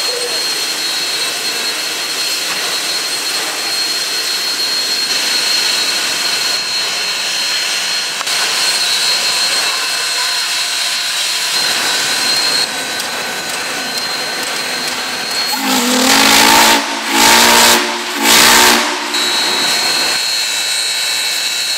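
Union Pacific 844, a 4-8-4 steam locomotive, standing and hissing steam with a thin steady whine. About three-quarters of the way in, its steam whistle sounds three blasts of several notes at once, the first the longest.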